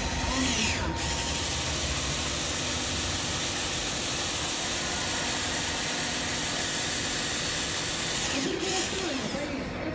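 Cordless drill running steadily as it bores through a liftgate glass hinge. The motor eases off briefly about a second in and again near the end.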